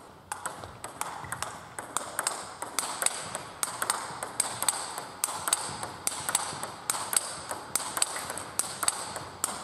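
Table tennis rally: the celluloid-type ball clicking sharply off the bats and the table, several clicks a second in a fast, even rhythm.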